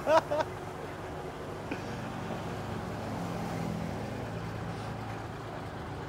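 Tractor engine running steadily as the tractor travels at walking pace, a low even hum.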